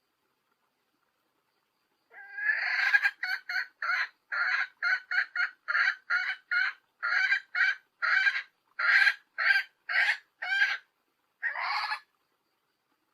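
A hen calling, a recorded female call of the kind played to bring males into breeding condition. It is a run of about twenty short, sharp clucks that starts about two seconds in, with a longer call first and a last one near the end.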